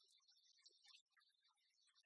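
Near silence, with only faint scattered ticks and hiss.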